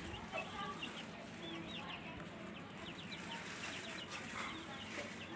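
A flock of hens clucking while feeding, with many short high calls overlapping one another throughout.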